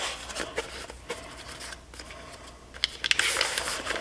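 Small paperboard box being opened by hand: light taps and cardboard rubbing as the inner tray slides out, then louder rustling of plastic wrapping about three seconds in.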